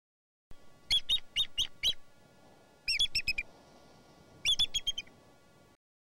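Bald eagle calling: three bursts of quick, high piping notes, about a second apart, the later two trailing off in loudness. Faint outdoor hiss lies underneath.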